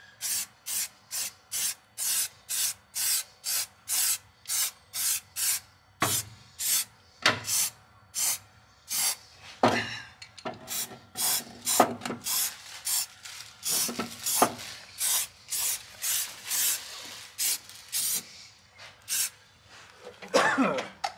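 Hand tool rasping back and forth on a steel plate, about two to three strokes a second at first, then quicker and less regular about halfway through.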